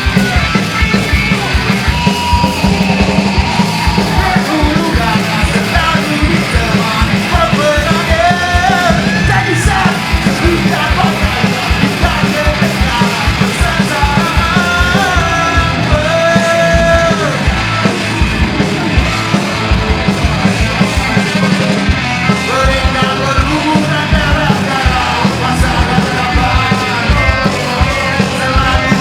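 Live punk rock band playing at full volume: fast drums, distorted guitars and bass, with shouted vocals.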